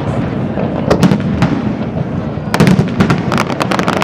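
Aerial fireworks shells bursting with bangs and rapid crackling, in a cluster about a second in and a denser one from about two and a half seconds.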